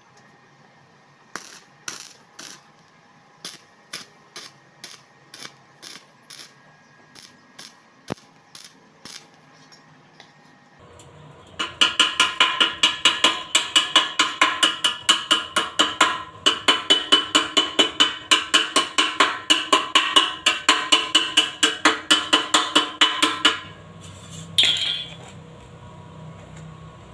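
A steel-tipped hand tool tapping on a freshly welded steel box-section frame, chipping off weld slag. Scattered single taps for about ten seconds, then a fast, even run of ringing metallic strikes, several a second, for about twelve seconds, ending in one louder knock.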